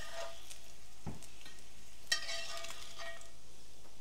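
Butter sizzling in a cast iron skillet while a metal spatula scrapes the pan and clinks against the plates as fried cheese slices are lifted out; the sharpest clink comes about two seconds in.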